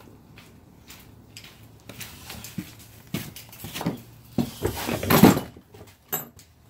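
Scattered clicks and knocks of a person working close to the microphone, with a louder rustling scrape about five seconds in.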